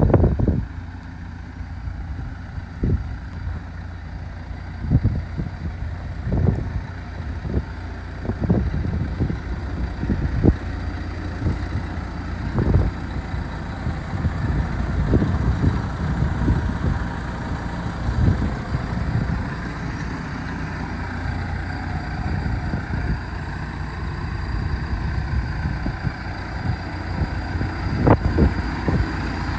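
Wind buffeting the microphone in irregular low gusts, over the steady hum of a running engine that grows louder about halfway through.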